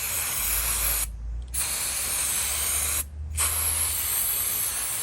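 Aerosol can of spray parts cleaner hissing in three long bursts, with short breaks about a second in and three seconds in, flushing dirt out of a disassembled ratchet's mechanism.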